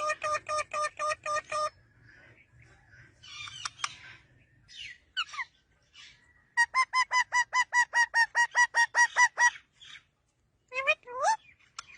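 Parrot calling: a run of rapid repeated squawks at about five a second at the start and a longer run in the middle, with rising whistled calls between them and near the end.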